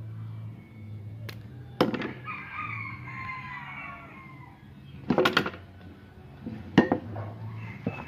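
Sharp snips and clicks of scissors cutting a thin PVC strip and hard plastic parts knocking as they are handled, the loudest a few separate clicks and a quick cluster about five seconds in. A rooster crows in the background near the start.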